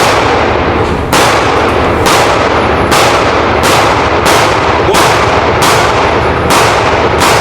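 Handgun shots fired one after another, about one a second, around ten in all, each echoing into the next.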